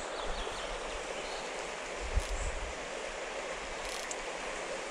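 Steady rushing of a shallow river running over stones, with a soft low bump about two seconds in.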